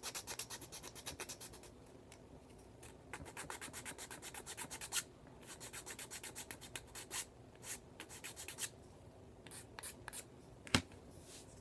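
Hand file scraping along a seam on a small plastic model-kit engine part, in quick back-and-forth strokes, several runs with short pauses between them. A single sharp click comes near the end.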